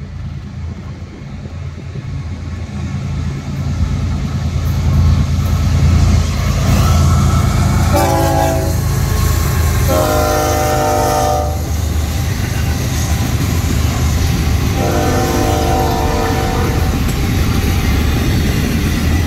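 Florida East Coast Railway freight train passing close by. The low diesel rumble of its GE ES44C4 locomotives builds as they approach, and the horn sounds three times: a short blast about 8 seconds in, then two longer ones. The steady rumble and rail clatter of double-stack container cars rolling past follow.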